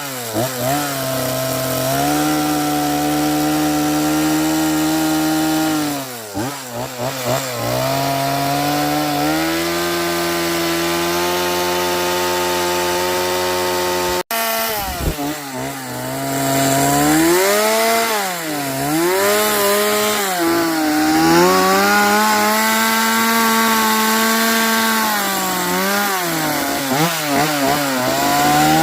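Stihl chainsaw carving cedar, its engine pitch dipping and rising over and over as the chain bites into the wood and eases off. The sound breaks off for an instant about halfway through.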